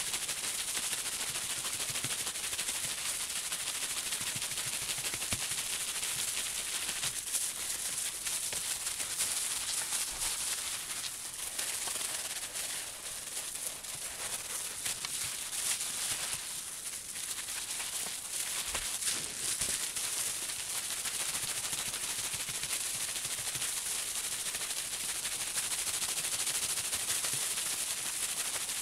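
Gloved hands rubbing and kneading a wet, soapy Karachay-wool felt slipper on bubble wrap while fulling it: a steady wet crackling and rustling of plastic, with a few seconds of quieter rubbing in the middle.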